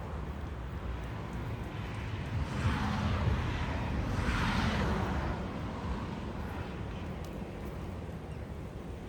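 Wind buffeting the microphone as a steady low rumble, with a rushing sound that swells and fades over a few seconds in the middle.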